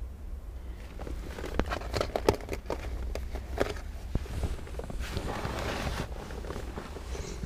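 Screwdriver and plastic dash trim being handled: scattered clicks, taps and rustling that begin about a second in, over a low steady hum.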